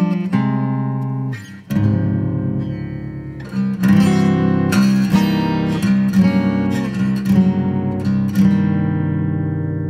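Solo acoustic guitar playing chords that are struck and left to ring. There is a brief dip about one and a half seconds in, then a louder strummed chord at about three and a half seconds that rings on and slowly fades.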